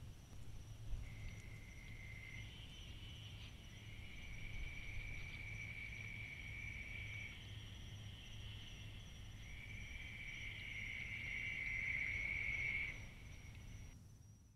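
Three long, even, high-pitched trills from a night-calling animal, each lasting a few seconds, the last the loudest, over a faint steady hum. A single soft tick comes about a second in.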